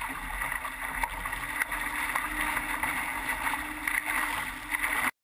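Laser sailing dinghy planing downwind, its hull and bow wave rushing and splashing through choppy water, with wind rumbling on the boat-mounted microphone and a faint steady hum underneath. The sound cuts off suddenly near the end.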